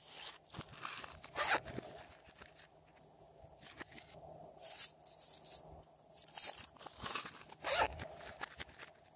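Plastic packaging being handled: short crinkling, scraping rustles from a bag of sprinkles and a plastic container, one early and a run of them in the second half.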